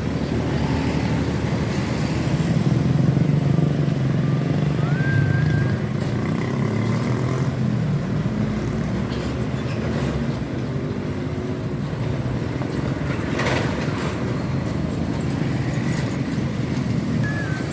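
Road traffic: trucks and motorcycles passing close by, their engines making a steady low drone that swells and eases. There is a short burst of hiss about two-thirds of the way through.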